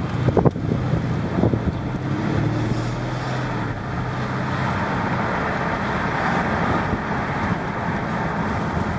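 Road and tyre noise inside a 2013 Mercedes-Benz S550's cabin as it drives, with a steady low hum for the first few seconds and a few knocks right at the start. No brake squeak stands out.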